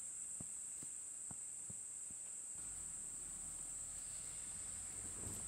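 Steady high-pitched drone of insects, with a few faint ticks in the first couple of seconds and a faint low rumble coming in about halfway.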